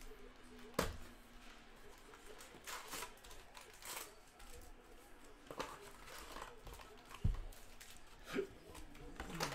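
Panini Hoops basketball card packs being torn open, their wrappers crinkling as the cards are handled, with two sharp knocks on the table, one about a second in and a louder one about seven seconds in.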